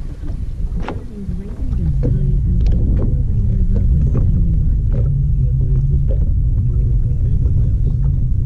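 Wind buffeting the camera microphone in a steady low rumble that grows louder about two seconds in, with a few sharp clicks scattered through it.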